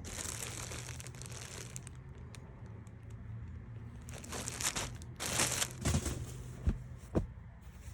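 Rustling and crinkling of T-shirts being handled and pulled out of a storage bin. There are louder bursts of rustling about halfway through.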